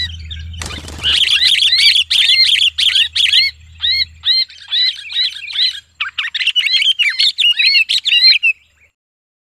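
Sooty-headed bulbul held in the hand, screaming in distress: a fast, harsh string of short, arched calls that breaks off near the end.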